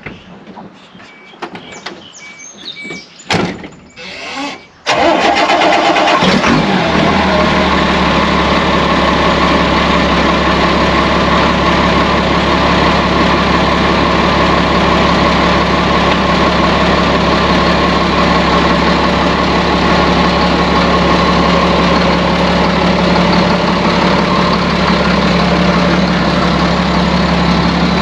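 A vehicle's engine cranks and catches about five seconds in, then idles steadily. Its exhaust elbows are rusted through with holes. Before the start there are a few clicks and a short series of high beeps.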